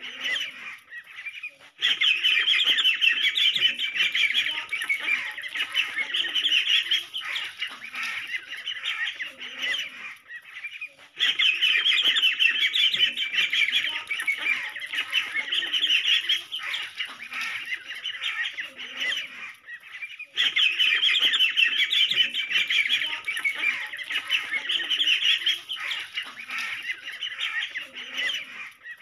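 A crowd of ducklings peeping, many high, quick calls overlapping at once. The chorus swells suddenly louder about two seconds in, again near eleven seconds and again near twenty seconds.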